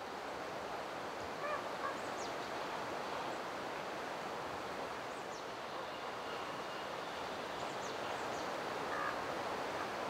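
A few short calls from common ravens over a steady rushing outdoor ambience, with some thin, high falling chirps scattered through it.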